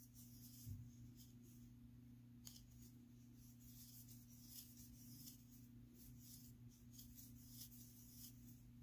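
Near silence: faint, irregular scratchy ticks of a crochet hook drawing cotton yarn through loops as foundation chains are made, over a low steady hum.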